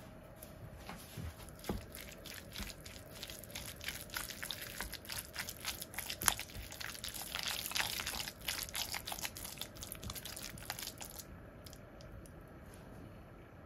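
Silicone spatula stirring chopped boiled egg and mayonnaise in a glass bowl: a quick run of wet clicks and scrapes, busiest in the middle and thinning out near the end.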